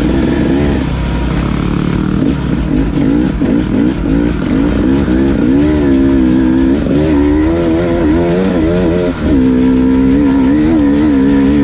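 Dirt bike engine heard from onboard the rider's own bike, its pitch rising and falling repeatedly as the throttle is worked along a trail. The engine note drops briefly about nine seconds in, then picks up again.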